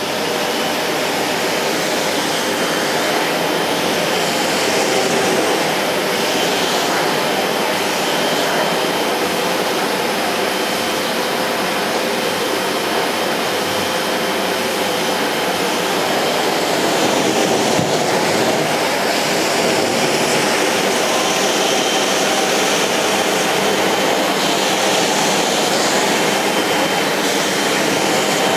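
Sebo Airbelt C3 Power bagged cylinder vacuum cleaner running steadily as its floor nozzle is pushed back and forth over carpet: a loud, even rush of air with a faint high whine.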